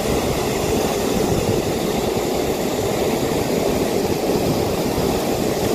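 Ocean surf breaking on a beach: a steady rushing noise with a low, fluttering rumble underneath.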